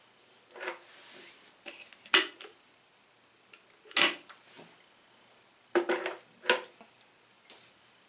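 An electric kettle being lifted off its plastic power base, turned over in the hands and set back down: a run of plastic clunks and knocks, the sharpest about 2 and 4 seconds in and a quick cluster near 6 seconds.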